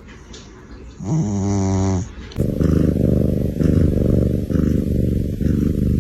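A sleeping cat snoring: one long snore about a second in. About halfway through, a steady, low, pulsing rumble takes over.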